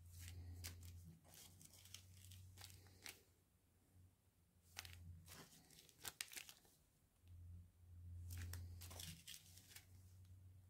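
Faint crinkling and light clicking of small plastic zip-lock bags of round diamond-painting drills being handled and turned over in the hands, over a faint low hum that comes and goes.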